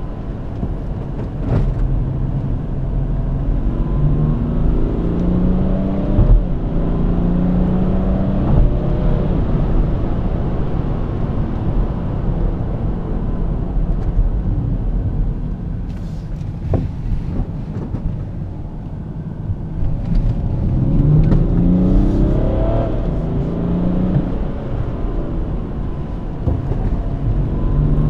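BMW X4 30d's 3.0-litre straight-six turbodiesel heard from inside the cabin over steady tyre and road rumble. The car speeds up hard twice, about two seconds in and again about twenty seconds in. Each time the engine note rises, drops back at a gear change, and climbs again.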